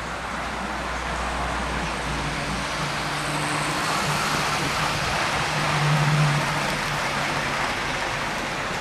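Model railway train running on the layout's track: a steady whirring rumble of motor and wheels on rails that swells about six seconds in and then eases.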